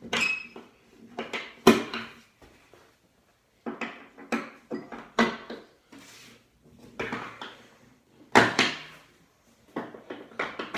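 Metal strap hooks clacking and knocking against the steel anchor plates of a plywood yoga wall as a yoga strap is hooked on and adjusted. The sharp clacks come in irregular clusters, some with a short metallic ring.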